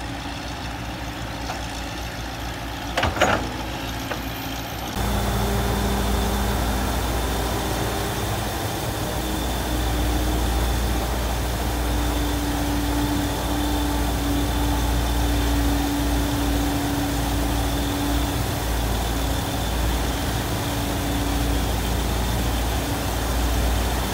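Heavy diesel machinery running steadily: a crawler excavator's engine, with a brief loud clatter about three seconds in. About five seconds in a louder, steady engine sound with a low hum takes over, from an excavator and a floating sand-dredge platform working together.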